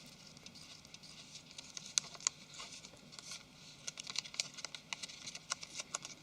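Faint small clicks and taps of a phone's flex circuit and plastic rear cover being handled and pressed into place by hand. There are two sharper clicks about two seconds in, then a quicker run of light taps in the second half.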